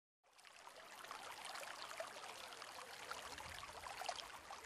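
Faint, steady sound of running water made of many small splashing drops, fading in quickly just after the start.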